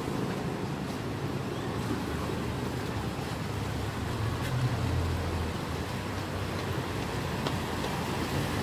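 Diesel engine of a Saen Saep canal boat running as the boat passes close by, a low drone that swells about halfway through, over wind and water noise.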